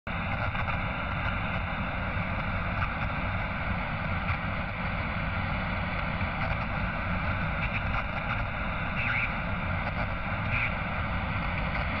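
Old-TV static sound effect: a steady rush of white-noise-like hiss with a few brief crackles.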